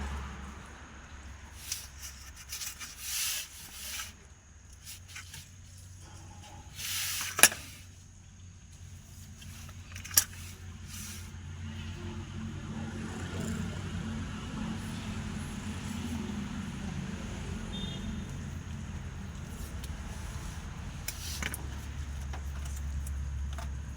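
Hand work on vehicle wiring: short rustles and clicks, with a sharp click about seven seconds in and another about ten seconds in. From about twelve seconds a steady low rumble sets in and carries on underneath.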